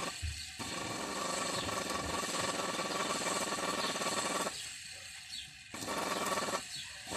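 Single-phase electric motor of a Pedrollo JSWm 15MX jet pump, reassembled and run on its own on a test lead, giving a loud steady hum with a whine. The hum cuts out about four and a half seconds in, comes back about a second later, and cuts out again near the end. The repaired motor is running.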